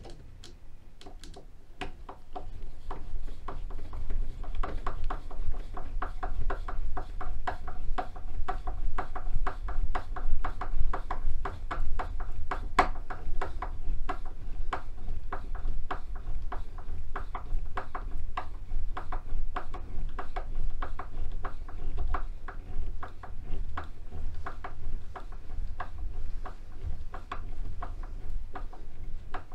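Hand screwdriver driving a mounting screw through a thermostat base into a wooden stud: a long, steady run of rapid clicks with a slight squeaky ring, starting about two seconds in.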